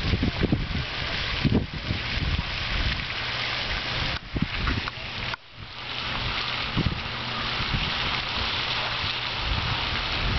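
Wind buffeting the camera's microphone: a steady rushing hiss with gusty low rumbles and a few bumps, dropping away briefly about five seconds in.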